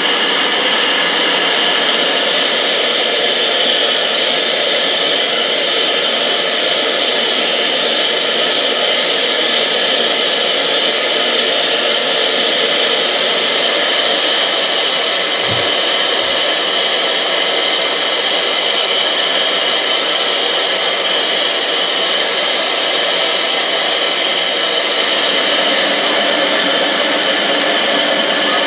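Steam hissing steadily from an LNER V2 class steam locomotive, a loud continuous rush that stays even throughout.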